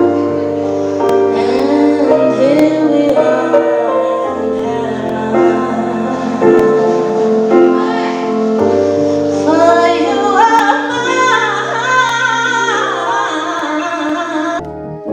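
A woman singing an R&B song over held keyboard chords and a bass line. The music cuts off abruptly near the end.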